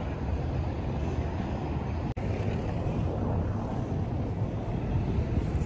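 Steady low rumbling background noise with no distinct events, briefly cutting out about two seconds in.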